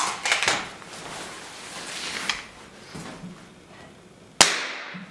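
A Beeman .22 air rifle fired once with no pellet loaded, muzzle pointed straight at the sound meter's microphone: a single sharp crack near the end, which reads about 119 dB on the meter. A few lighter clicks and knocks from handling come in the first second.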